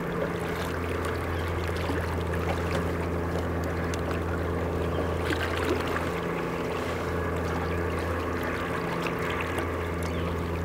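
Boat's outboard motor idling steadily, a constant low hum, with water noise around the hull.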